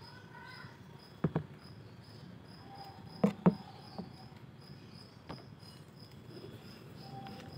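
A cricket chirping steadily, short high chirps about twice a second, with a few sharp taps over it, the loudest a quick pair about three seconds in.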